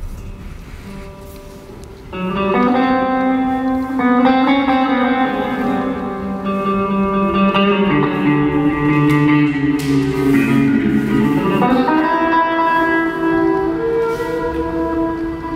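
Free improvised music with an electric guitar among the instruments. It is quiet at first; about two seconds in, layered long-held notes come in louder and shift in pitch every second or two.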